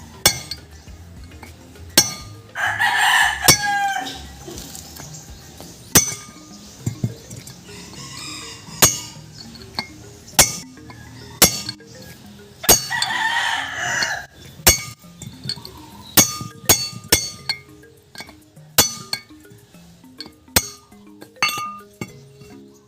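Repeated sharp metal-on-metal strikes and clinks, irregularly spaced, some ringing briefly, from work on a front wheel hub and its bearings. A rooster crows twice, about three seconds in and again about thirteen seconds in.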